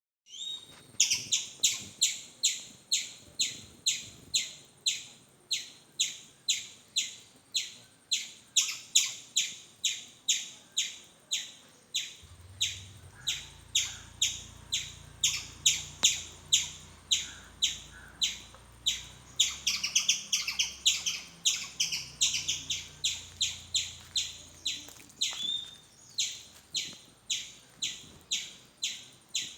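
Squirrel giving a long series of sharp, high chirping calls, about two a second, with a quicker flurry of calls around twenty seconds in.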